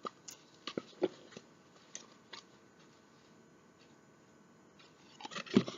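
Small plastic K-cup pods being handled: several light clicks and taps in the first couple of seconds, then a busier clatter and rustle near the end.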